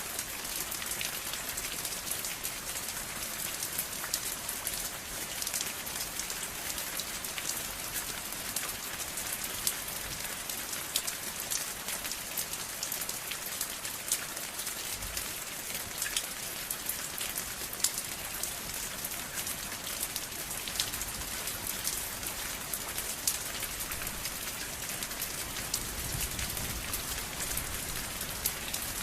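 Steady rain falling on a surface, an even hiss with many small sharp drop impacts scattered throughout.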